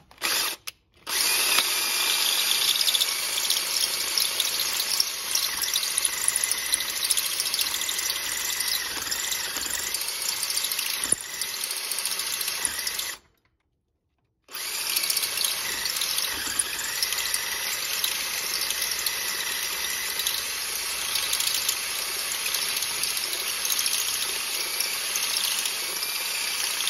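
Handheld power drill boring out a stripped M12 bolt hole in an aluminum engine block, oversizing it for a steel thread insert. The drill runs steadily, stops just after the start and again for about a second midway, then runs on.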